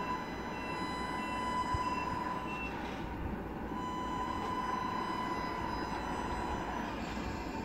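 Tamiya Scania radio-controlled truck's sound unit: a reversing beeper sounds about every two-thirds of a second and stops about two and a half seconds in. Under it runs a steady, wavering whining hum as the truck moves off.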